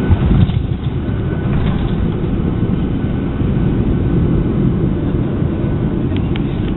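Steady loud rumble inside a jet airliner's cabin as it rolls at speed along the runway: engine and wheel noise heard from a window seat beside the wing engine. There is a brief louder jolt right at the start.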